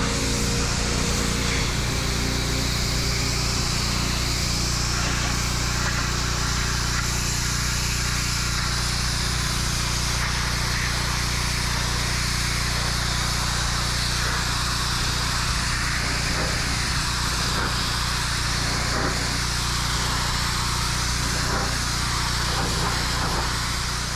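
Pressure washer running steadily as its lance blasts a jet of water onto a concrete kerb and wall base: an even motor hum under a loud hiss of spray.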